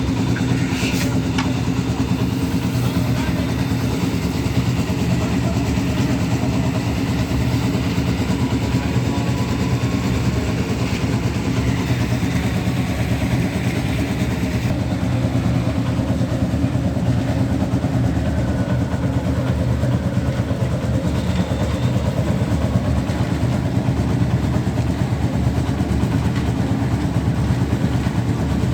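An engine on a construction machine running steadily at a constant speed, with no revving or change in pitch.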